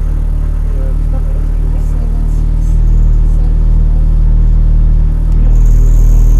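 Renault Mégane N4 rally car's engine idling while the car stands still, heard inside the cabin as a steady low rumble. It gets a little louder about three seconds in and again near the end, when a faint high whine joins it.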